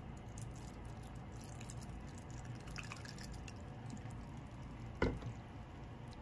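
Ponzu dripping and trickling from a bottle into a small bowl of live ice gobies, with faint small ticks, then a single sharp knock about five seconds in.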